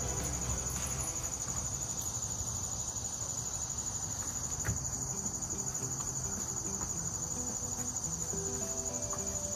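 A steady, high-pitched chorus of insects trilling, with a fast, even pulsing that does not let up.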